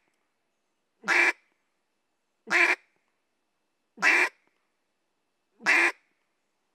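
Single quacks blown on an Echo Timber wooden duck call: four short, evenly spaced notes about one and a half seconds apart, each cut off sharply.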